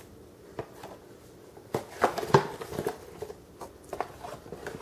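A measuring cup scooping whole wheat flour from a paper flour bag: scattered rustles of the paper and short knocks of the cup against the bag, the loudest about two seconds in.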